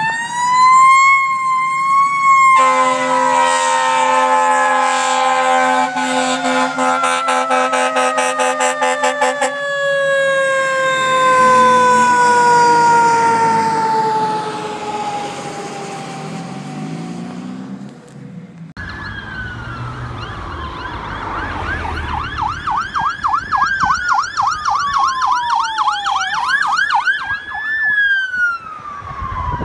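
A fire engine's siren winds up, then a long blast of its air horn sounds for about seven seconds while the siren slowly winds down. Near the middle the sound changes to a police car's electronic siren, wailing up and down and switching to a fast yelp.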